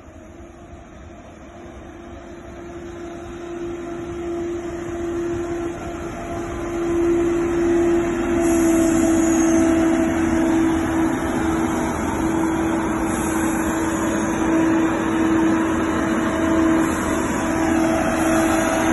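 Northern diesel multiple-unit train approaching and running past the platform. It grows louder over the first seven seconds or so, then stays loud with a steady hum under the rumble as the carriages go by.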